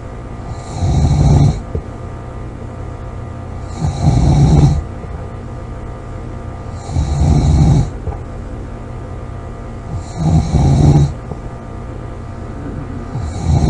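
A person snoring loudly, one snore about every three seconds, each lasting about a second, five in all, over a steady low hum.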